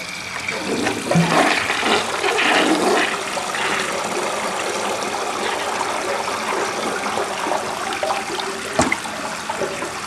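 1963 Briggs toilet flushing: a loud rush of water, gurgling hardest in the first few seconds, then a steadier swirl, with one sharp click near the end. The load of paper towel in the bowl leaves this flush clogged.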